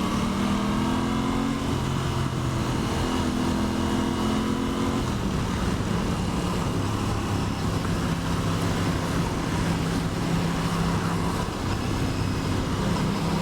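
Aprilia Tuono 660 parallel-twin engine under way, heard from the rider's position over steady wind rush. The engine note climbs and steps in pitch over the first few seconds, then holds steady from about five seconds in.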